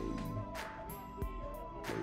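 Music with a steady beat: drum hits roughly every half second or so over deep bass notes and a held melody line that slides between pitches.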